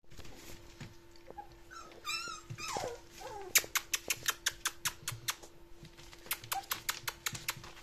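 Young puppies whimpering with short wavering cries about two seconds in, then a quick run of sharp clicks and taps as they scrabble about on newspaper and against the pen's sides.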